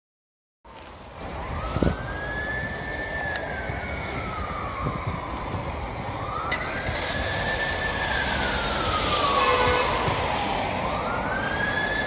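Ambulance siren wailing, its pitch slowly rising and falling about every four and a half seconds, three times, over street traffic noise. There is a short knock near the start.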